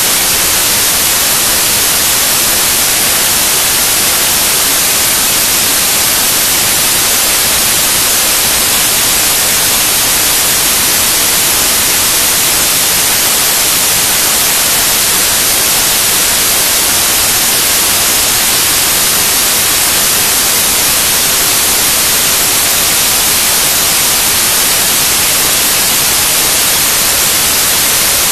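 Loud, steady static hiss like white noise, strongest in the treble, unchanging throughout: raw file data on Mini DV tape played back as if it were sound.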